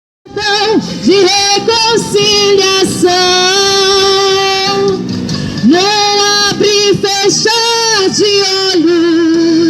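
A woman singing a Portuguese gospel hymn, holding long notes with a slight waver between short phrases.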